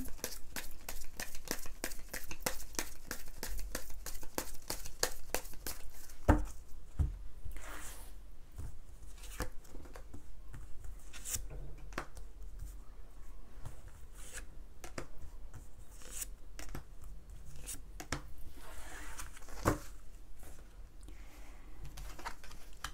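Tarot cards being shuffled and handled: a fast run of crisp card clicks for about the first six seconds, then sparser snaps and soft slides as cards are drawn and laid down.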